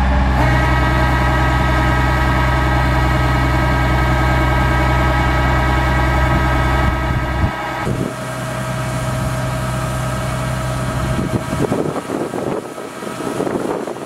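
Kubota combine harvester's diesel engine running steadily at a constant speed while its unloading auger feeds grain into sacks. About eight seconds in, the sound drops to a fainter, noisier rumble.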